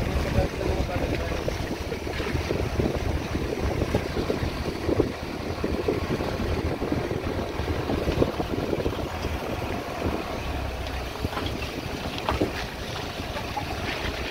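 Wind buffeting the microphone: a steady rush with a deep low rumble and no clear tones.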